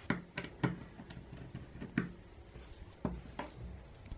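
A few light, sharp clicks and taps at irregular intervals as small repair tools handle the opened Xiaomi Mi Max 3 smartphone's parts.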